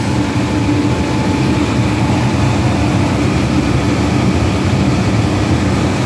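Goodman gas furnace running with its burners lit and inducer motor going: a steady low rumble with a constant hum. The furnace is firing normally now that its failed control board, which was not sending 24 volts to the gas valve, has been replaced.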